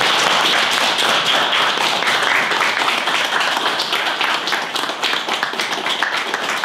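A small audience applauding, with dense clapping that thins into more separate claps near the end.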